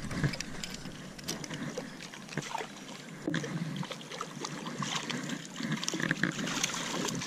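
Stream water trickling and splashing around a hooked brook trout as it is reeled in on a spinning reel, with scattered short clicks and knocks.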